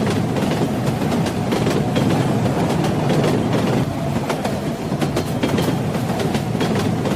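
Train wheels running over rail joints: a steady low rumble with irregular clicks and clacks from the wheels.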